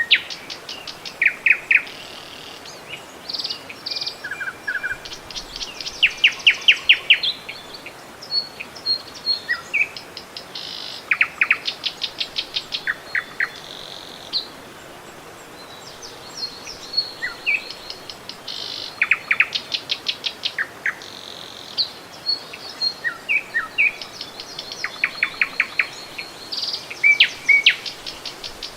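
Songbirds singing and calling: repeated quick chirps and rapid trills, several a few seconds apart, over a faint steady rush of river water.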